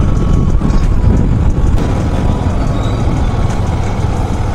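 Steady road noise from riding a motorcycle through city traffic: wind rumbling on the microphone over the bike's engine and the vehicles around it.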